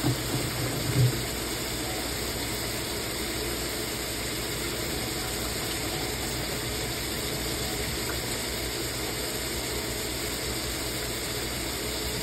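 Ground pork and red bell pepper in kaprao sauce sizzling steadily in a frying pan, with a low hum beneath and a few soft knocks in the first second.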